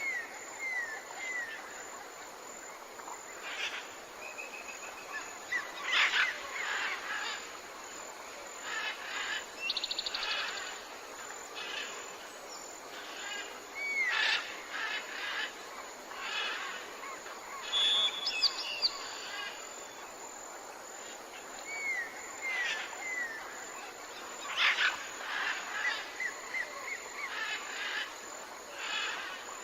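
Tropical forest ambience with several birds calling over a steady background hiss: short curved whistles in quick groups of two or three, scattered chirps, and a brief buzzy trill.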